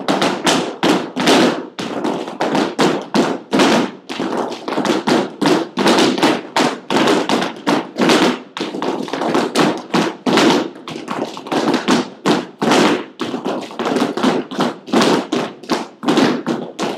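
Flamenco shoes striking a hard studio floor: a group of dancers doing alegrías footwork, heel and toe strikes coming several a second in an unbroken rhythm, with no music.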